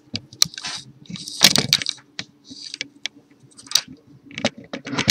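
Irregular clicks, taps and short scratchy rustles, a few a second, over a faint steady hum: handling noise near the microphone.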